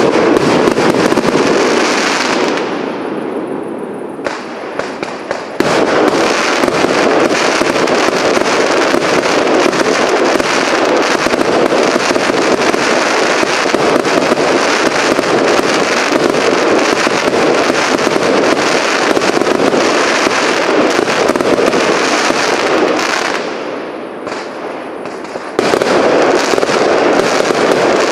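Cake fireworks firing shot after shot, a dense continuous din of launches, bangs and crackling bursts. It fades twice, about three seconds in and again near the end, and each time the barrage resumes suddenly at full loudness.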